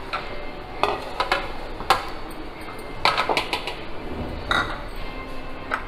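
Ceramic bowls knocking and clinking against each other and the countertop, about half a dozen separate knocks, as a large mixing bowl is set down and flour is tipped into it from small bowls.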